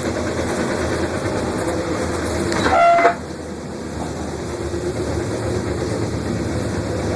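Passenger train running along the track with a steady rumble. Just under three seconds in, a brief high-pitched tone swells and cuts off, and the rumble then drops quieter.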